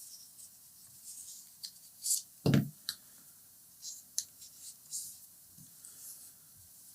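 Hands working a flattened heat-shrink label tube open and feeding a cable into it: light plastic rustles and clicks, with one louder knock about two and a half seconds in.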